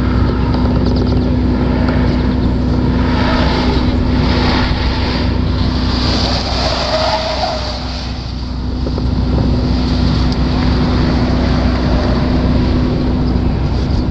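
Brand-new all-electric Nissan Leaf on an autocross run, heard mostly as tyre and road noise that swells as the car comes near in the middle, over a steady low hum.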